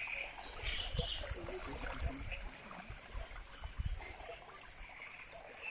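Water trickling and lapping around a small boat moving slowly along a reed bed, with a few low thumps and faint high chirps near the start.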